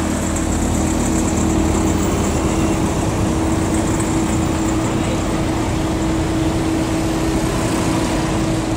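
Vehicle engines running steadily at close range, with a constant engine hum: a heavy flatbed truck moving off along the road while cars pass by.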